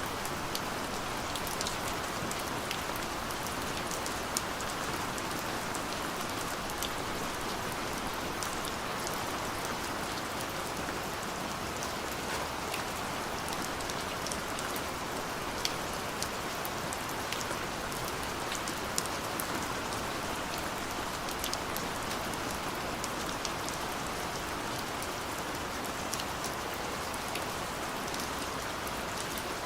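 Steady light rain falling, an even hiss with scattered individual drop ticks on a surface.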